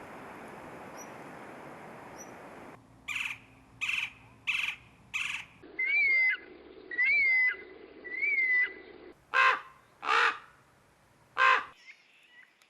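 Wild birds calling. A steady hiss with faint high chirps gives way about three seconds in to a run of four short harsh calls, then three clear whistled notes that rise and fall, then three louder harsh calls.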